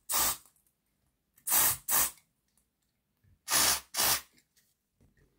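Aerosol spray can with a straw nozzle giving short hissing bursts in quick pairs, about every two seconds, to flush dirt out of a model locomotive's chassis.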